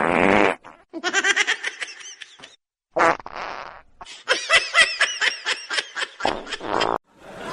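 Bursts of quick, pulsing laughter broken up by several short noisy blasts.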